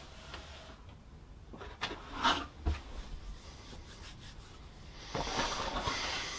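Cardboard pizza boxes being handled, rubbing and scraping: a few short scrapes and a knock about two seconds in, then a longer rustling scrape near the end.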